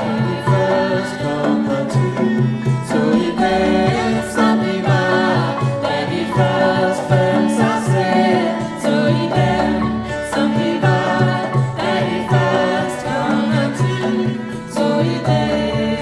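Live acoustic band music: several voices singing together over hand drums and drum kit, with cello and mallets on a marimba, and a repeating bass line underneath.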